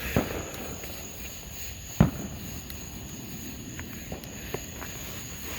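Fireworks going off: a sharp bang at the start and a louder one about two seconds later, each with a short echo, then a few faint pops.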